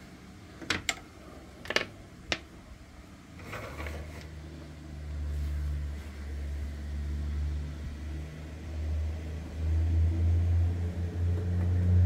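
A few sharp taps in the first couple of seconds, then a low, steady engine-like hum that starts a few seconds in and grows louder near the end.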